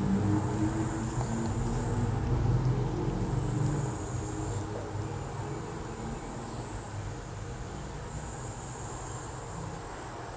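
Steady high-pitched insect chorus over the low rumble of a vehicle engine, which fades after about four seconds.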